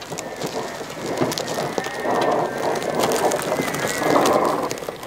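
Greenworks Pro 60V electric zero-turn riding mower driving over grass with its cutting blades off. The quiet electric drive is covered by a crackling rustle of the tyres crushing the grass, which grows louder as the mower approaches.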